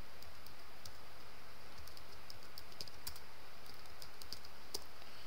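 Typing on a computer keyboard: a run of light, irregular keystroke clicks over a steady faint hiss.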